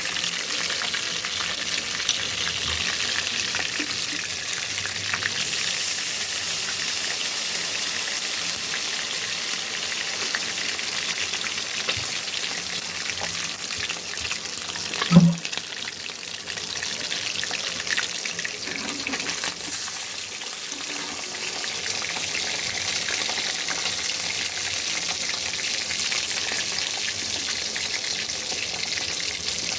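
Steamed hilsa tail pieces frying in hot oil with a steady sizzle. A single sharp knock about halfway through.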